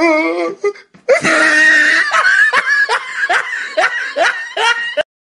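A person laughing hard, in quick repeated pulses that cut off suddenly near the end, after a short wavering vocal sound at the start.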